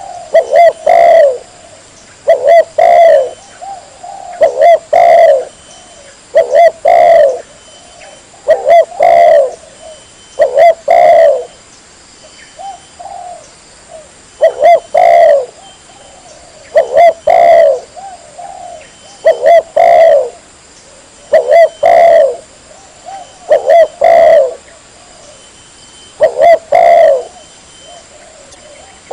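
Spotted dove (tekukur) cooing, a short low phrase of two or three coos repeated about every two seconds, with a brief softer stretch near the middle. This is the male's advertising song, used here as a lure call for trapping doves.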